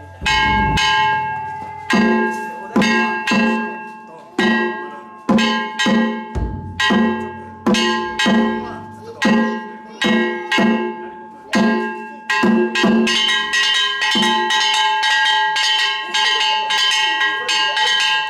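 Danjiri festival-cart music: drums struck with wooden sticks while metal gongs ring on, roughly one to two strokes a second. About two-thirds of the way through the strokes come faster and busier, with brighter ringing.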